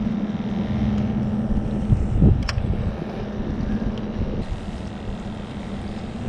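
Wind buffeting the microphone, with a steady low engine drone underneath and one sharp click about two and a half seconds in.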